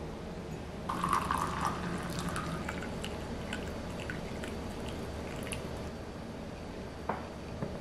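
Tea pouring from a glass teapot into a ceramic cup. The stream starts about a second in, thins to a trickle with scattered drips after about three seconds, and a light knock comes near the end.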